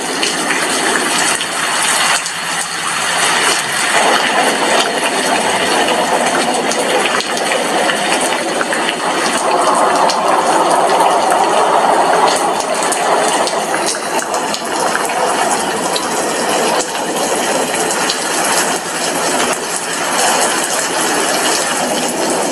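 Steady rain with drops pattering on a glass window pane, a dense run of small ticks over a constant wash of noise, swelling louder for a few seconds mid-way.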